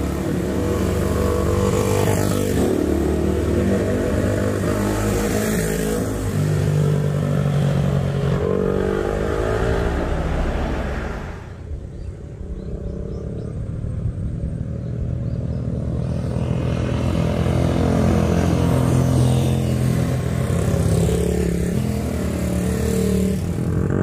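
Small 100cc single-cylinder Honda motorcycles (an Ape100 and an SL100) running on a winding road, engine pitch rising and falling as they rev through the bends. The sound drops away briefly about halfway through, then the engines come back louder.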